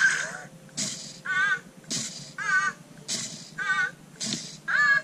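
Anki Cozmo toy robot's electronic voice: a short hiss followed by a warbling, wavering chirp, repeated about four times at roughly one a second.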